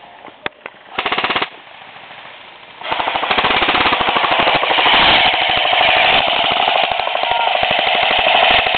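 Airsoft guns firing on full auto: a couple of single shots, a short rattling burst about a second in, then sustained rapid fire from about three seconds on.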